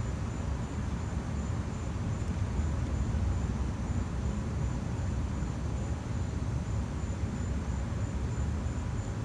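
Steady low background rumble, with a faint high tone pulsing evenly throughout; no tool clicks or knocks stand out.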